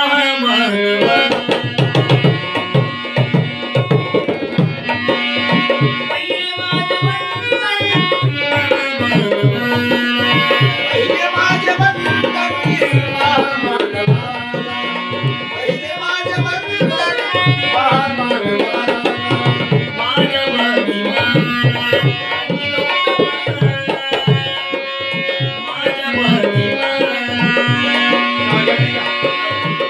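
Instrumental interlude of a Marathi Bhim geet: tabla playing a quick, steady rhythm under a held, repeating melody line. A sung phrase trails off at the very start.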